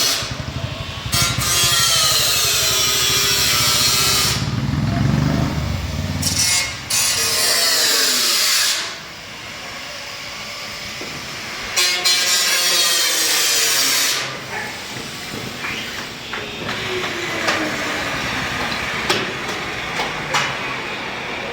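A power tool cutting in three loud bursts of a few seconds each, its pitch sliding up and down under load, with quieter running between the bursts.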